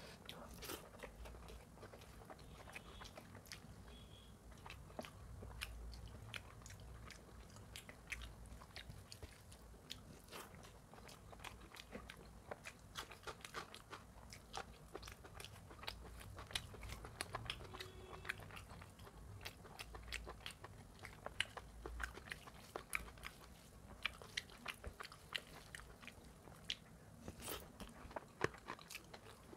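Close-miked chewing and mouth sounds of a person eating mutton curry and rice by hand: many irregular wet clicks and smacks, with fingers squishing the rice and gravy.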